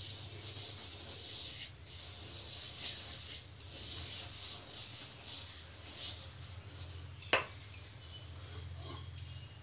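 Crumbly mix of oats, gram flour and curd being stirred and rubbed together by hand in a steel bowl: a dry, scratchy rubbing that comes in uneven strokes. A single sharp click about seven seconds in, and a steady low hum underneath.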